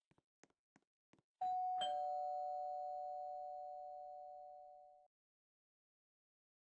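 Two-tone ding-dong doorbell chime: a higher note, then a lower note about half a second later, both ringing on and fading before cutting off suddenly.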